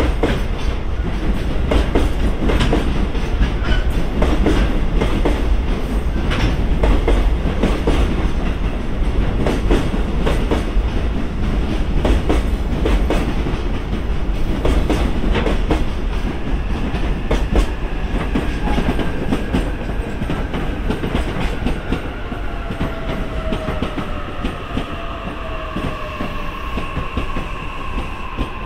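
Wheels of JR Freight container wagons clacking rhythmically over the rail joints as the freight train rolls past. In the second half the clacking thins, and long, slowly falling tones join in.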